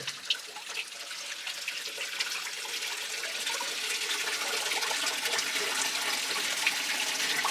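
Spring water running and splashing along a mine tunnel, a steady rushing that grows gradually louder.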